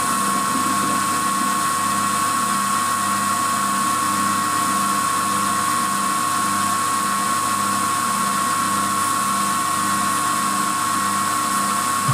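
Boxford 190VMCi CNC milling machine cutting a step in metal with an end mill, its spindle running with a steady high whine and a low regular pulsing beneath.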